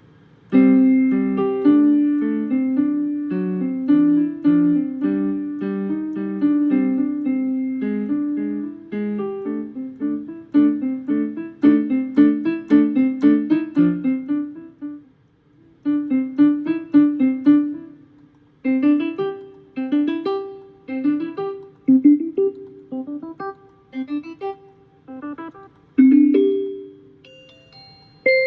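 Roland SC-55ST Sound Canvas module playing a piano patch: a passage of chords and quick running notes with a couple of short breaks and a held final chord near the end.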